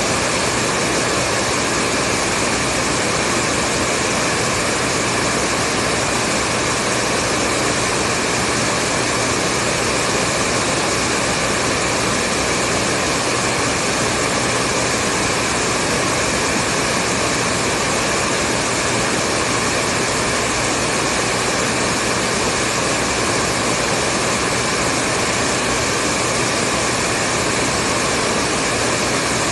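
Hair dryer running continuously at a steady speed: an even rush of blown air with a faint motor hum, unchanging throughout.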